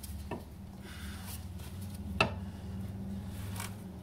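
Handling noise from the rear trailing arm being worked into its bracket by hand: a faint click near the start and one sharp knock about two seconds in, over a steady low hum.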